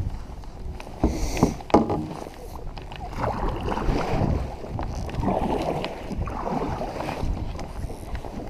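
Kayak paddle strokes splashing through choppy water, with wind on the microphone. A few sharp knocks in the first two seconds as the paddle is handled against the kayak.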